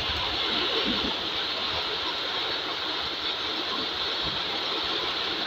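Steady heavy rain, an even hiss with a low rumble underneath.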